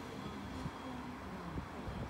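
Sydney Trains Tangara double-deck electric train running away down the line, its wheel-on-rail rumble steady and low.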